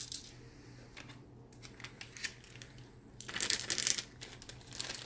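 Thin plastic bag crinkling as polyhedral dice are worked into it by hand, with scattered light clicks; the rustle is loudest for about a second past the middle.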